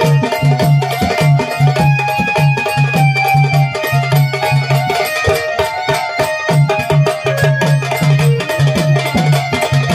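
Live instrumental folk-music accompaniment to a Marathi gavlan song with no singing: quick hand-drum beats over a repeating low pulse, with a sustained melody line above.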